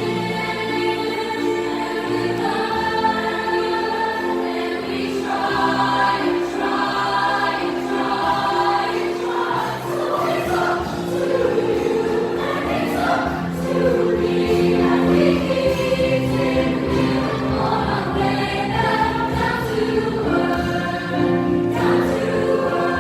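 Junior high choir singing a song with music behind it, voices holding long notes.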